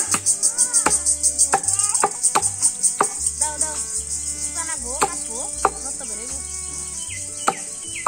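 Sharp chopping strikes of a blade cutting through a bundle of green stalks against a wooden log, about nine blows at an uneven pace that thin out in the last few seconds. Insects chirp in a fast, high pulsing rhythm behind it, with birds calling.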